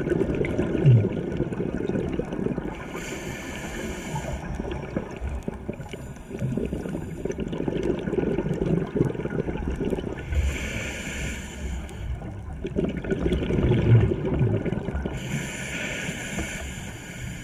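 Scuba diver breathing through a regulator, heard underwater: a hiss on each inhalation about every four to five seconds, alternating with the gurgling rush of exhaled bubbles.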